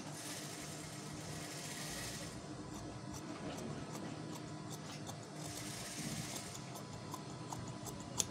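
Large tailor's shears cutting through blouse cloth, in two long rasping cuts: one at the start lasting about two seconds and a shorter one about five and a half seconds in. A sharp click comes just before the end, over a steady low hum.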